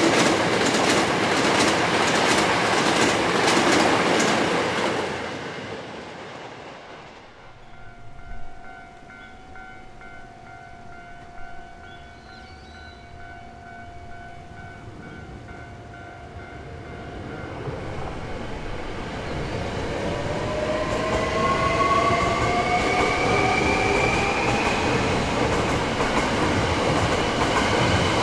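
A Hankyu Kyoto Line electric train passes with a rhythmic clatter of wheels over rail joints and fades away within the first several seconds. In the quieter middle a level-crossing alarm rings steadily. Then another electric train comes on, its motors whining upward in pitch as it grows loud over the last third.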